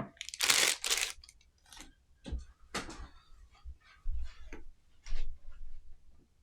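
Handling noises from unpacking the parts of a third-hand soldering stand: a brief rustle about half a second in, then a scattering of light clicks and knocks as the metal pieces are moved about.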